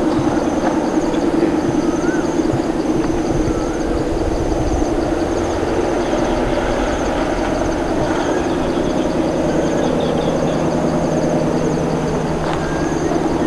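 Steady drone of a distant Alstom diesel locomotive's Pielstick engine, even and unbroken. Insects chirp over it in a fast, high, pulsing rhythm, with a few short bird chirps.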